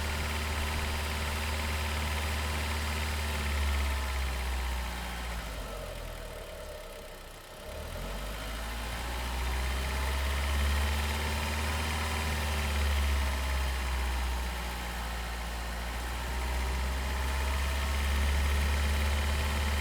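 Audi TT 8N engine running, its revs dipping about seven seconds in, then rising and falling twice. The uploader is demonstrating a knocking noise from around the belt area that comes in between 2000 and 3000 rpm.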